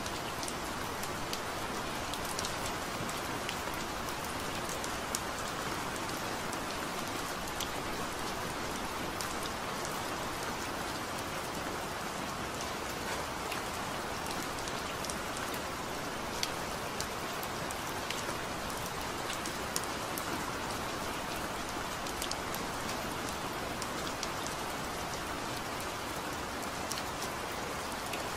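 Steady rain falling, an even hiss dotted with scattered ticks of single drops.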